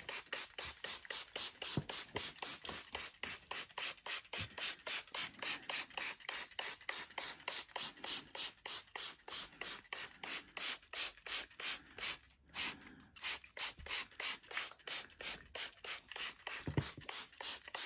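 Hand spray bottle misting moss, pumped in quick, regular squirts about three or four times a second, with one short pause about twelve seconds in.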